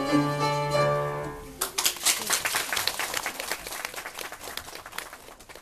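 A violin ends the piece on a held final note with its accompaniment. About a second and a half in, applause starts and gradually dies away.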